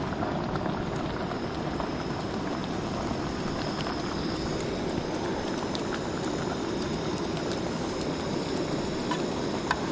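Steady rushing of a mountain stream, with a few faint clicks.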